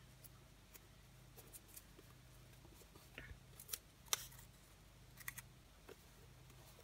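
Faint paper handling: small rustles and ticks as a sticky-note flower mask is lifted and pressed onto a card, with a few sharper ticks around the middle, over a low steady hum.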